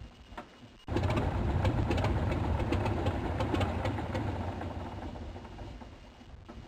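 Helicopter rotor and engine with a fast, steady rotor chop. It comes in suddenly about a second in, then slowly fades.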